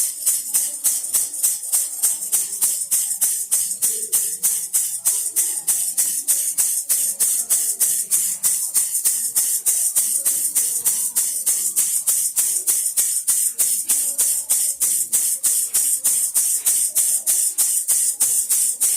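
Baby rattle shaken steadily in an even rhythm, about four or five shakes a second, giving a bright, high-pitched rattle.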